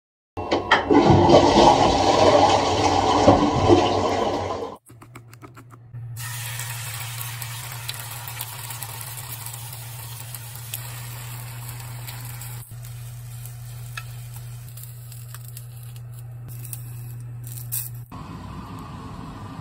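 A toilet flushing: loud rushing water for about four seconds that stops abruptly. Then a steady low hum with a few light knocks while eggs and sausages cook in a rectangular tamagoyaki pan on an induction hob; the hum cuts out near the end.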